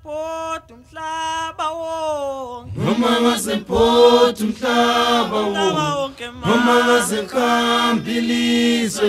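Unaccompanied chanted singing. One voice holds long notes, then several voices join in louder about three seconds in.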